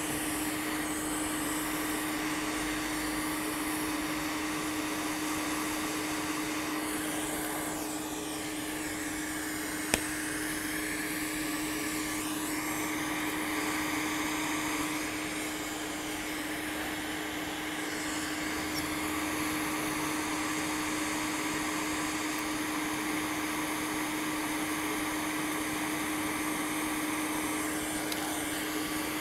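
Hot air rework station blowing steadily with a constant hum while desoldering parts from a laptop motherboard, the hiss changing tone for a few seconds near the middle. A single sharp click about ten seconds in.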